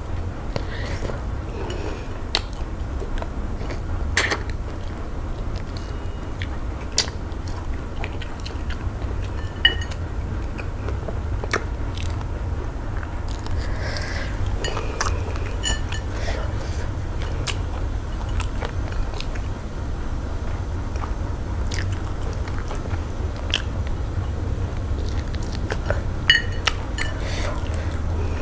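Close-miked eating sounds of a person eating eba and slimy okro-melon soup by hand: chewing, wet mouth smacks and finger-licking. Scattered sharp clicks run over a steady low hum.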